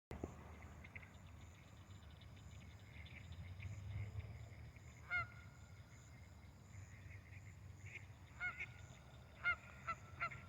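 A duck's faint, wheezing, laughing-like quacks: one call about halfway through, then a quickening run of calls in the last two seconds.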